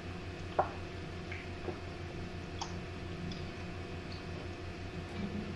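A few faint, light clicks and ticks from kitchen handling, scattered several seconds apart over a steady low hum.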